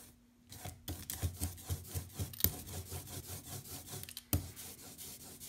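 Hand ink brayer rolled quickly back and forth through printing ink, a rhythmic rubbing at about four strokes a second, with one sharp knock about four seconds in.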